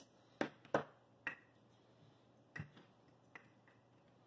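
About six sharp, irregular clicks and knocks of hex keys being set down on the bench and hands handling the metal telescope mount's worm-gear housing.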